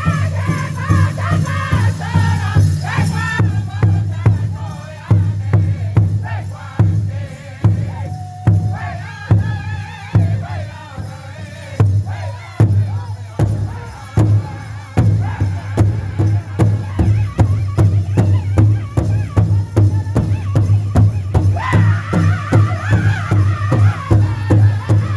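Powwow drum group singing an intertribal song: a steady unison beat on the big drum under high-pitched group singing. The singing drops back after the first few seconds and comes in strong again near the end.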